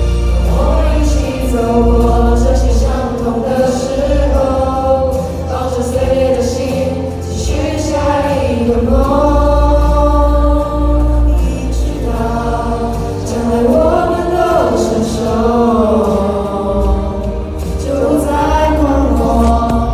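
A cover of a Mandarin pop song: sung vocals, with a choir-like layered sound, over backing music with a heavy bass.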